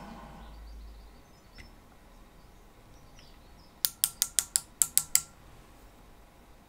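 A metal lathe running down and stopping within the first second. About four seconds in come eight sharp clicks in quick succession: a micrometer's ratchet stop clicking as it closes on the work to take a measurement.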